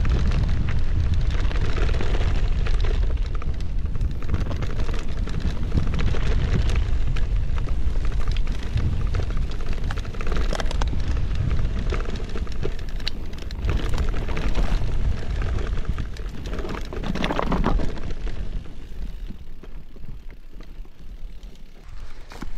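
Wind buffeting the microphone over the rumble and rattle of mountain-bike tyres rolling on a rough, stony track, with scattered knocks; the noise eases and gets quieter about eighteen seconds in.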